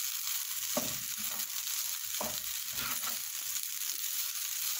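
Fried rice with peas sizzling in a hot oiled stone-coated pan while a wooden spatula stirs and scrapes through it, a few strokes standing out over the steady sizzle.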